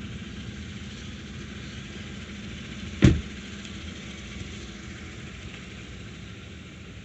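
A car door slams shut once, about three seconds in, over a steady low rumble of an idling vehicle engine.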